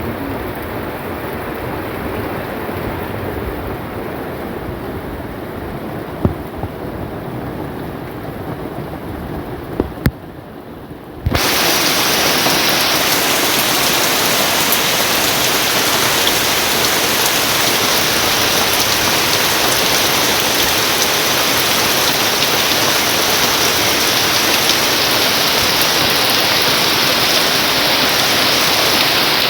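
Steady rainfall with a few sharp drip-like taps. About eleven seconds in it jumps abruptly to much louder, heavier rain, which then holds steady.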